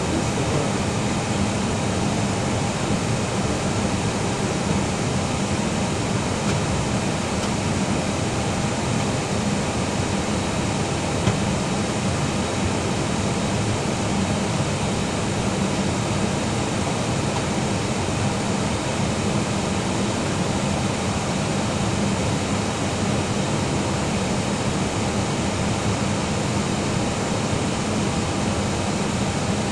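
Steady cabin noise inside an Airbus airliner in flight on descent: the jet engines and the rushing airflow make an even hiss with a low hum underneath.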